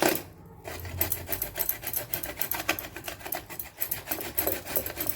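Steamed amla (Indian gooseberries) being grated by hand on a kitchen grater: quick, even scraping strokes, about three or four a second, starting about half a second in.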